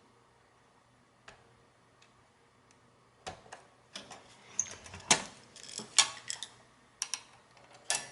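Irregular mechanical clicks and clatter from an Amano 6836 punch clock's mechanism being reset by hand, beginning about three seconds in after a single faint click.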